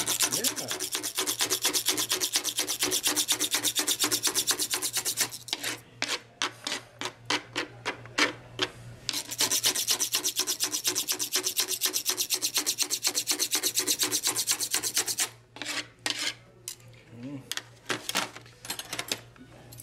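Utensils scraping and chopping against the bottom of a wooden salad bowl, cutting and mashing anchovies with lemon juice into a paste. It comes as two long runs of fast, even strokes, with slower, scattered strokes between them and near the end.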